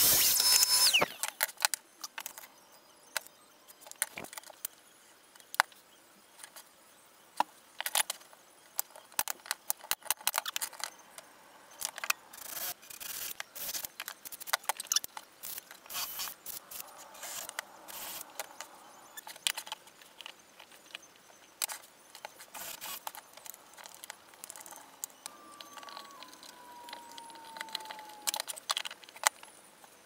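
Workshop assembly sounds: scattered clicks and knocks of wooden birdhouse pieces and tools handled on a bench, with a cordless drill driving screws. A mitre saw cut, the loudest sound, ends about a second in, and a short whine falling in pitch runs for a few seconds near the end.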